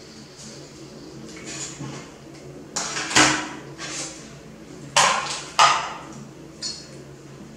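Plastic divided food plates clattering and scraping on a tabletop as one is tipped over, with a few loud knocks and scrapes about three seconds in and twice more around five seconds in.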